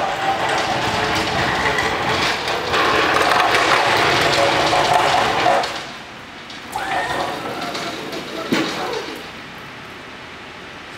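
Raymond long-fork electric pallet jack driving over concrete: a steady electric motor whine with rolling noise that cuts off about six seconds in. It starts up again briefly around seven seconds, with a thump about eight and a half seconds in.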